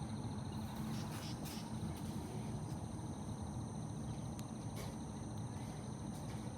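Steady outdoor insect chorus with a few sustained high-pitched drones.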